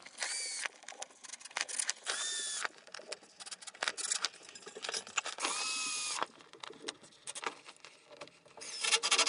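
Cordless drill driving a screw and washer through a tarp grommet into a 2x4, in three short runs, each spinning up to a steady whine. Scattered clicks come between the runs.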